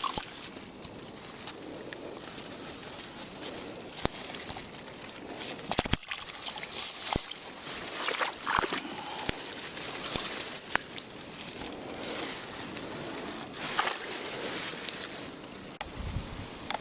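Mountain stream running, a steady high hiss that swells and eases, with scattered sharp clicks and knocks.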